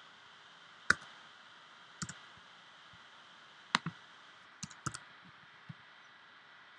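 A handful of single key presses on a computer keyboard, irregularly spaced, the loudest about a second in, over a faint steady hiss.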